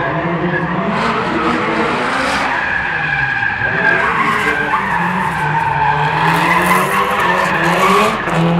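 Subaru drift cars sliding, their engines revving hard and the note rising and falling, over continuous tyre squeal and skidding.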